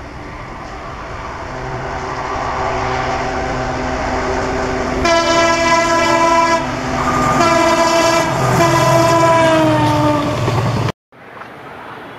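WDP 4 (EMD GT46PAC) diesel locomotive approaching and growing louder, then sounding its horn twice: a short blast and a longer one whose pitch drops as the locomotive passes. Near the end the sound cuts off abruptly and gives way to quieter train running noise.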